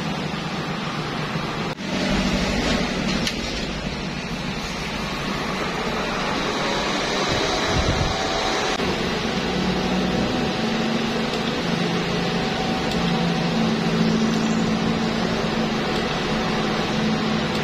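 Cooling fan of a Stahlwerk InMIX-6LV inverter welder running steadily with the machine switched on and idling, not welding. The fan noise holds steady with a faint hum under it and dips briefly about two seconds in.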